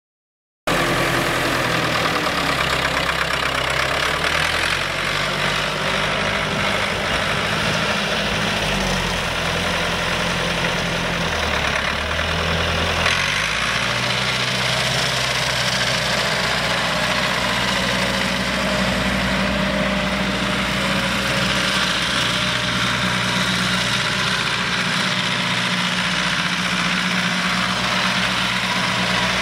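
Ford 5000 tractor's four-cylinder diesel engine idling steadily, cutting in about half a second in; its low engine note shifts briefly around the middle, then holds steady.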